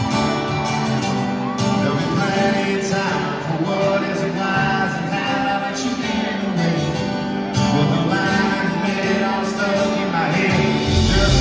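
Live country music: acoustic guitars strumming with a male voice singing through the PA. Near the end a deep bass note comes in under the guitars.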